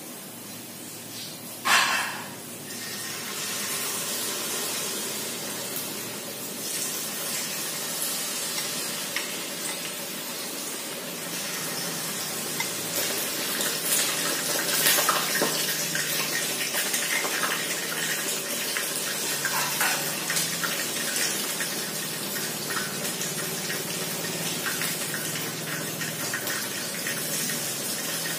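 Hot oil sizzling steadily as a batch of tilapia deep-fries in a frying pan, with a sharp hiss about two seconds in and small pops throughout as batter is spooned into the oil.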